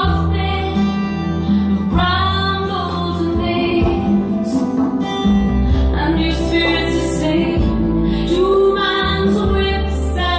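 Music: a woman singing long held notes over acoustic guitar and a steady bass line.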